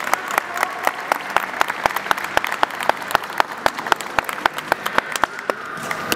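Spectators applauding, with sharp claps in a steady rhythm about four a second over the general applause, dying away near the end.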